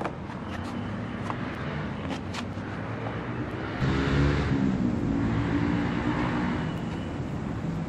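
A motor vehicle's engine passing close by, swelling about four seconds in and fading toward the end, over a steady background hum. A few light clicks in the first seconds.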